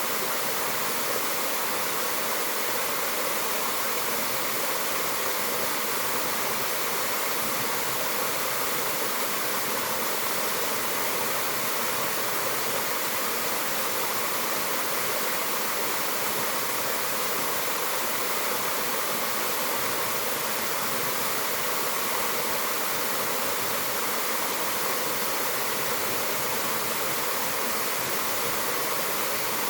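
Mountain waterfall: water falling and rushing in a steady, even roar of white-noise hiss, with no breaks or changes.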